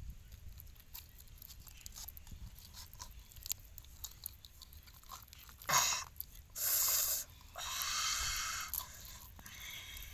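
A bamboo stick being pushed lengthwise through a whole raw fish to skewer it for grilling. Light scattered ticks come first; about six seconds in there is a sharp scrape, then two longer crunching, rasping pushes.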